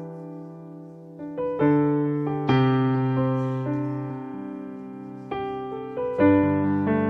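Piano playing slow, held chords, a new chord struck every second or two and left to ring and fade.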